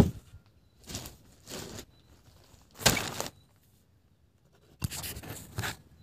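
A few short, irregular scraping and crunching noises, the loudest about three seconds in, with a cluster of them near the end.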